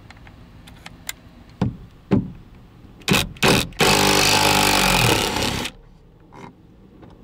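A Makita 12-volt cordless drill, with a 10 mm socket fitted, backing out the bolts of a grab handle. It gives a few short trigger blips, then runs steadily for about two seconds and stops suddenly. A few light clicks come first.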